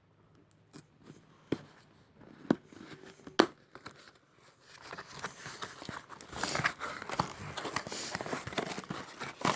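Headset packaging being opened by hand: a few sharp clicks and snaps, then from about five seconds in a steady crinkling and tearing of wrapping.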